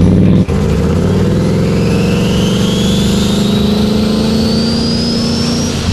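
Turbocharged 5.3-litre LS V8 in a Ford Ranger pulling hard under acceleration, its engine note slowly climbing while the turbo's whistle rises steadily in pitch as it spools up. There is a brief dropout about half a second in.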